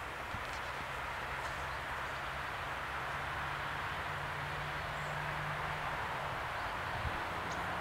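A distant train approaching a closed level crossing: a steady rushing hiss that slowly grows louder, with a low steady hum that stops about six seconds in and another hum coming in near the end.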